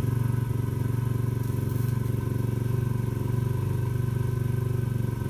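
125cc four-stroke single-cylinder pit bike engine idling steadily and evenly, an engine in good running order.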